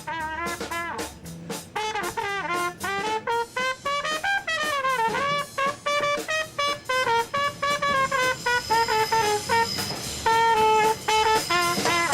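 Jazzy instrumental music led by a trumpet playing a lively melody, with some sliding notes, over a light rhythm backing.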